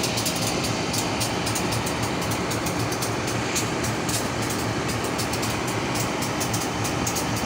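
A CC 201 diesel-electric locomotive idling at a standstill: a steady engine rumble with a faint hum. Fast, irregular clicking runs over it.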